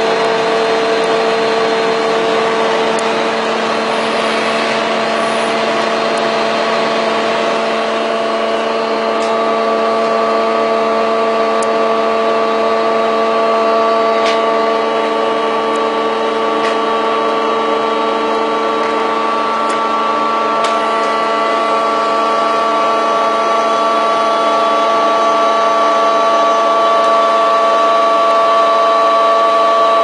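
A machine running steadily: a constant hum with several held pitches over a noisy whir, with a few faint ticks.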